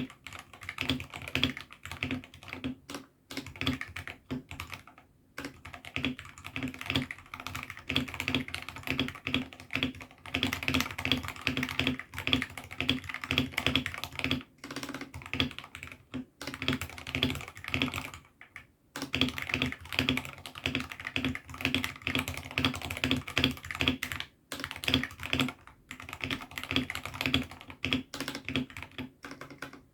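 Fast typing on a mechanical keyboard fitted with AKKO Sakura switches: a steady stream of keystroke clacks, broken by a few short pauses.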